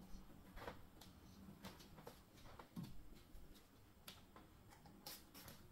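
Near silence with faint, scattered rustles and light taps of hands massaging and gathering a child's braided hair.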